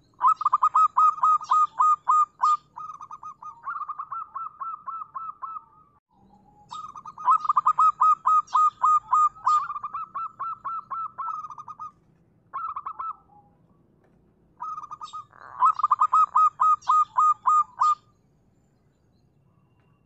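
Local-strain zebra dove (perkutut) cooing: long runs of rapid staccato notes, several a second. Three runs of several seconds each, with a brief one between the second and third.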